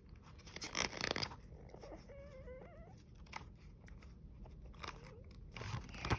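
Quiet rustling of a picture book's paper pages being handled, in short bursts about a second in and again near the end.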